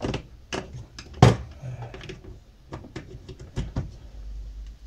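Irregular clicks and knocks of hands handling wires and metal parts in an open power-amplifier chassis, the loudest about a second in, with a low hum coming up near the end.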